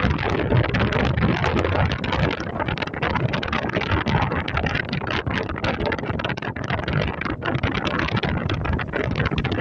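Wind buffeting the microphone: a loud, gusty rush that swells and dips throughout.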